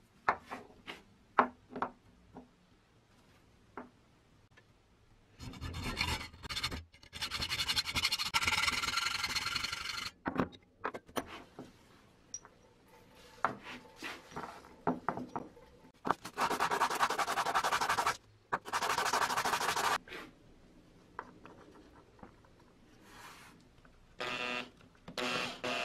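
Small metal parts of a broken bolt clicking and clinking against a wooden bench as they are handled, then several separate bursts of tool noise on metal. Near the end a cordless drill starts boring into a small metal piece to repair the bolt.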